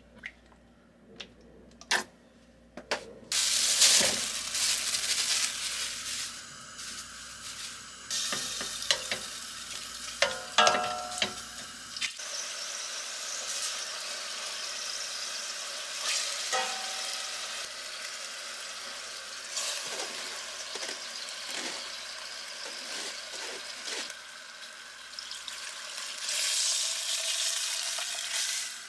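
Beef chunks sizzling as they stir-fry in sesame oil in a stainless steel pot. A spatula scrapes and clicks against the pot. The sizzle starts a few seconds in and gets louder for a moment near the end.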